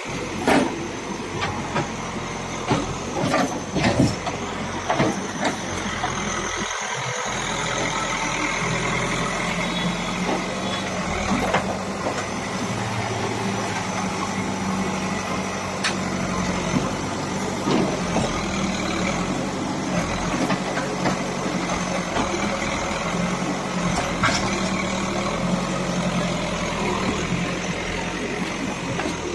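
Caterpillar 424B backhoe loader's diesel engine running steadily as the machine works, with sharp clanks and knocks now and then, several close together in the first few seconds.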